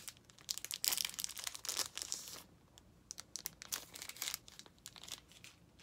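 Clear plastic sleeve crinkling as a makeup brush is pulled out of it. The crinkling is dense for the first two seconds or so, then thins to scattered crackles that stop about four and a half seconds in.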